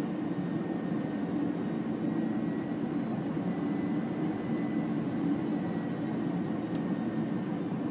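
Steady airliner cabin noise heard from inside the cabin: an even drone of jet engines and airflow, with a faint high whine held throughout.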